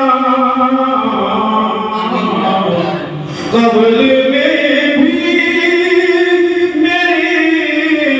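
A man's voice reciting a naat, an Urdu devotional poem in praise of the Prophet, sung unaccompanied into a microphone with long held, gliding notes. One phrase falls away and the next begins about three and a half seconds in.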